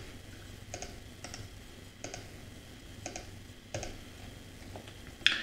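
Several irregularly spaced clicks of a computer mouse, some in quick pairs, over a faint steady hum.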